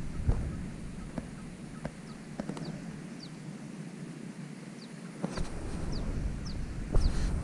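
Small bird calling repeatedly in short, high, falling chirps, with a few light clicks. Wind rumbles on the microphone at the start and again from about five seconds in.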